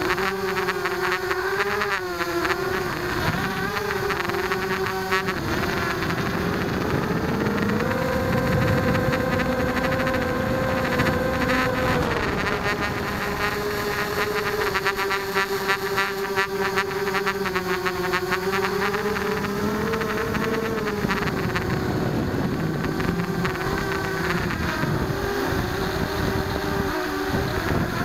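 Blade 200 QX quadcopter's brushless motors and propellers whining steadily in flight, heard from the camera carried on the craft. The pitch steps up and down a few times as the throttle changes, over a noisy rush of air.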